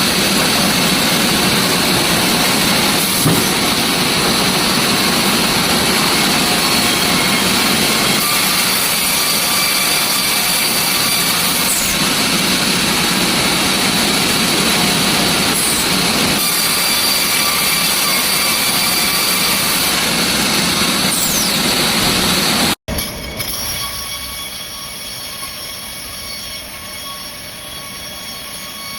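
Sawmill machinery running loud and steady as a large log is sawn, a high whine over a dense mechanical din. About 23 seconds in, the sound cuts abruptly to a quieter steady machine noise with several high whining tones.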